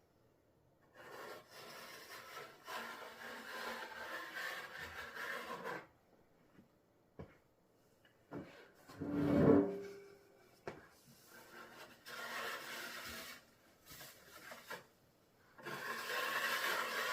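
Henry Feather Finish cement slurry being spread and scraped across a tabletop with a hand blade, in stretches of repeated strokes with pauses between. A single louder clunk with a short ring comes about nine seconds in.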